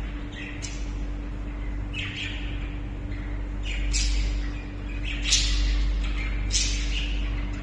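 Caged pet birds giving short, sharp squawks and chirps every second or so, over a steady low hum.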